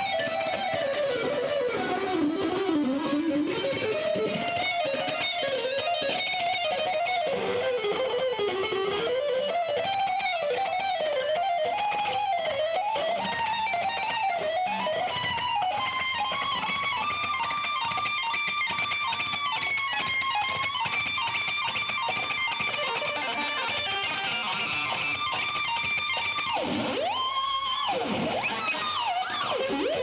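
Electric guitar music: a lead line that bends and wavers up and down, then settles on a long held high note, with a quick dive and rise in pitch shortly before the end.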